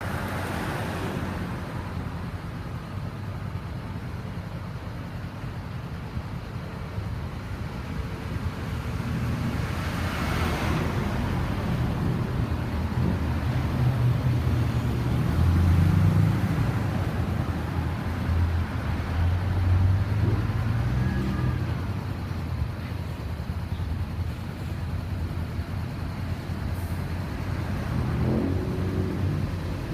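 Motor vehicle engines running with road traffic noise: a low rumble that grows louder and falls back around the middle.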